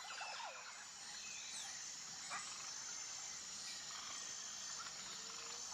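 Faint natural outdoor ambience: a steady high insect drone with a few faint bird calls, and one short sharp sound about two and a half seconds in.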